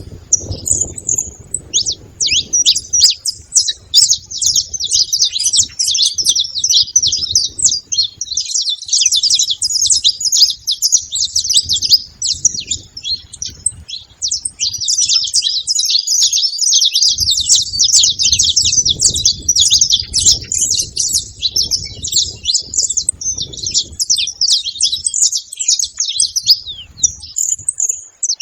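Saffron finches, male and female, chirping and trilling without pause in a dense stream of rapid high notes. A low rumble comes and goes underneath.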